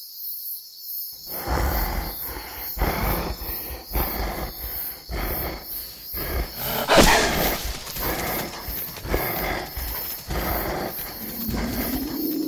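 Animated werewolf's growls and snarls, starting about a second in as rough repeated breaths, with a louder roar about seven seconds in.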